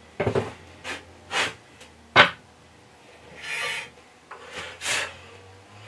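Metal handling noises at a bandsaw table while the rip fence is set: several short knocks and clicks, one sharp click a little after two seconds, and a rubbing, scraping slide about three and a half seconds in.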